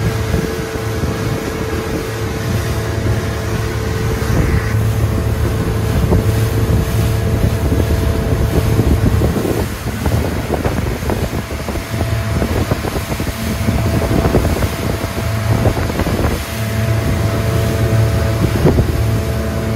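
SeaCraft motorboat running at speed across a light chop: a steady engine drone under hull slap, spray and wind buffeting the microphone. The engine tone fades twice, about ten seconds in and again about sixteen seconds in, leaving the splashing and knocks of the hull on the waves.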